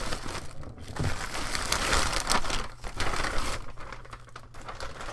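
Packaging crinkling and rustling in uneven stretches as gear is handled and unpacked.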